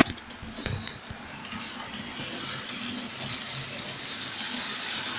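Model train running on the track: a steady rushing rumble that grows slightly louder. A sharp knock and a few lighter clicks come right at the start.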